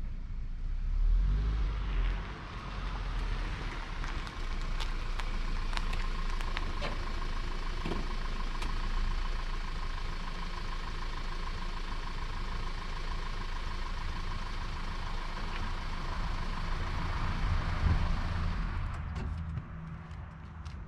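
A 2013 Audi A4 running as it pulls into a driveway, stops and idles. The engine noise cuts off near the end, followed by a few light clicks as the driver's door opens.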